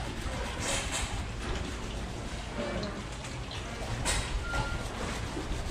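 Stiff-bristled hand brush scrubbing a wet boat fender, bristles scratching over it in strokes, with louder scrapes about a second in and again near four seconds in, over a steady low rumble.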